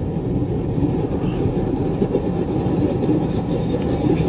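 Steady low roar of flame jetting inside a homemade charcoal-retort wood-gas stove. Gas driven out of the inverted charcoal canister burns as jets from eight small holes under the burner cap, which shows the retort has started up and is producing gas.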